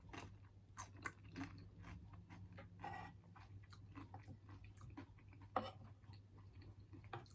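A person chewing food close to the microphone: soft, irregular wet mouth clicks and smacks, one louder click about five and a half seconds in, over a faint steady low hum.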